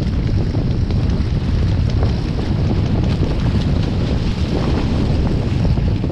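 Strong wind buffeting the microphone, over water rushing and splashing past the hulls of a small sailing catamaran under way.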